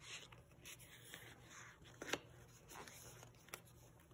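Faint rustling of sticker-book pages being handled and turned, with a couple of light paper ticks, one about two seconds in and another about a second later.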